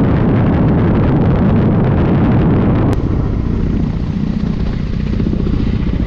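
Ka-52 attack helicopter in flight. First comes the loud, dense, steady noise of its turbines and coaxial rotors inside the cockpit. After an abrupt cut about three seconds in, a helicopter is heard from the ground flying past, quieter and thinner, with a rhythmic rotor beat.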